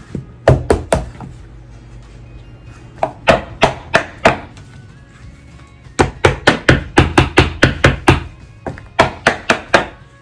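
Plastic ice cube tray being knocked sharply and repeatedly to free stuck resin ice cubes, in bursts of quick knocks, the longest a run of about four a second. The cubes are held fast where the Vaseline release coating missed a spot.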